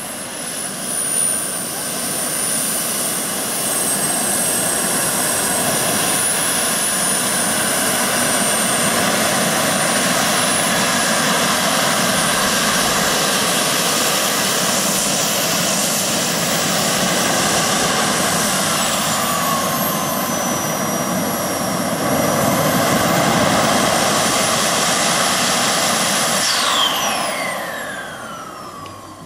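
Model jet turbines of a large RC Concorde running at taxi power: a steady roar with a high whine that wavers in pitch. About 27 s in, the whine falls steeply and the roar dies away as the turbines spool down after shutdown.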